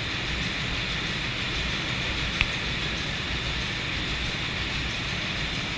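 Large stationary diesel generator set, a Thrige generator driven by a big flywheel diesel engine, running steadily: a low, even engine sound with a steady hiss above it. A single sharp click about two and a half seconds in.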